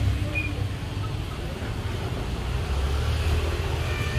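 Street ambience with a motorbike riding past, under a steady low rumble of wind on the microphone.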